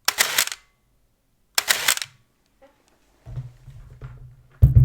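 A Pentax 645N II medium-format film SLR fires twice, about a second and a half apart. Each shutter release runs straight into a half-second whir of its built-in motor winder advancing the film. Later comes a low rumble of handling noise, with a sharp knock near the end.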